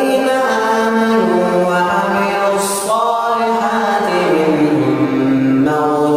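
A teenager's voice chanting Qur'an recitation in long, ornamented held notes that waver and glide in pitch, sliding down to a lower held note after about four seconds. A brief hiss comes about halfway through.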